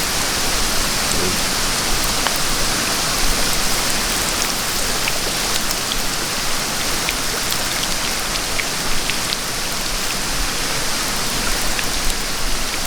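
Steady rushing hiss of a small creek flowing, with scattered small ticks and crackles over it.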